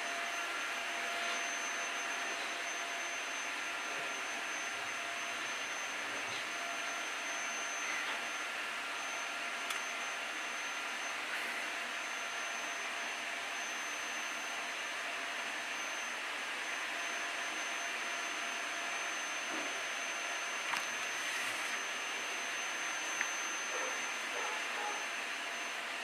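Steady background hiss with a faint, high steady whistle-like tone running through it, and a few faint single ticks.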